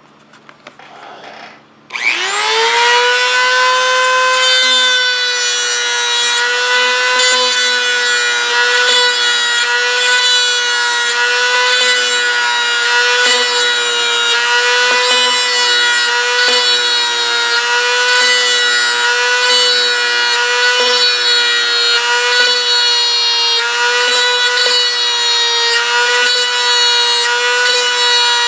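Dremel rotary tool with a brass tube in its chuck spinning up about two seconds in and then running at a steady high speed, cutting rivet impressions into a primed model-jet surface. Its note wavers slightly as the tube is pressed to the surface again and again.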